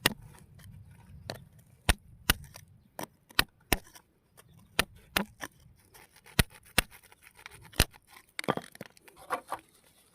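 Sharp, irregular clicks and knocks of hard objects, about fifteen over ten seconds, with a faint low rumble in the first few seconds and a short stretch of scraping near the end.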